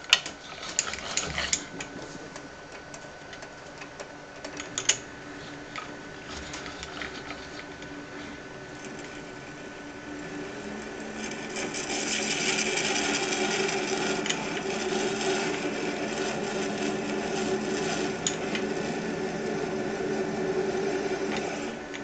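Small lathe running while the tool cuts a recess into a 3D-printed plastic knob. A few sharp clicks come in the first seconds, and the cutting noise grows louder from about halfway through.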